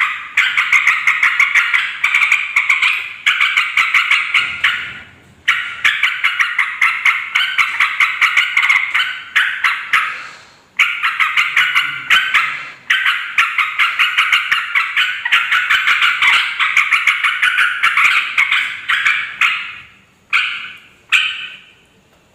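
Yellow-vented bulbul (trucukan) giving noisy, fast chattering calls in runs of a few seconds with short breaks, ending in two short phrases near the end.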